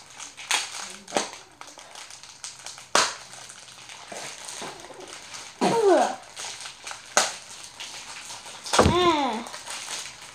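Plastic wrappers crinkling and crackling in short sharp bursts as they are pulled and bitten open. A child's voice twice gives a short sound that falls in pitch, once midway and once near the end.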